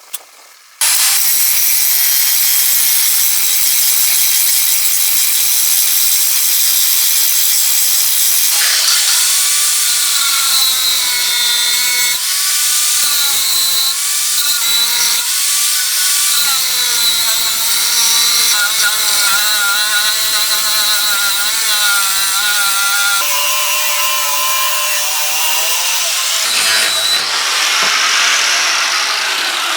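Power grinder grinding a steel hammer head. It starts abruptly about a second in and runs loud and steady, and from about nine seconds on its pitch wavers as the load on the wheel changes.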